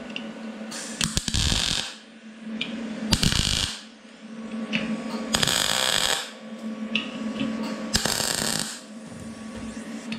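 MIG arc from a Vulcan OmniPro 220 welder making tack welds to fix a pipe onto a plate: four short bursts of crackling arc, each about a second long, with a steady low hum between them.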